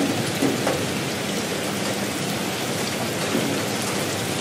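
Steady rain-like hiss with scattered faint crackles, the sound effect laid under an animated logo outro.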